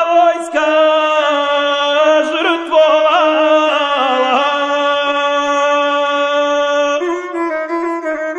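A guslar singing a long, wavering drawn-out note of an epic song over the gusle, the single-string bowed folk instrument. About seven seconds in the voice drops away and the gusle plays on alone in quick stepping notes.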